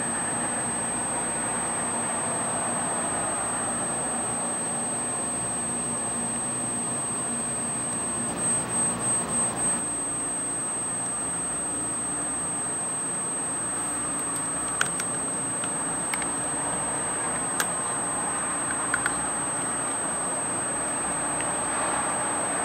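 A steady high-pitched electronic whine over a constant low hum of outdoor city noise. About eight and a half seconds in comes a short run of five quick beeps, and later a few sharp clicks.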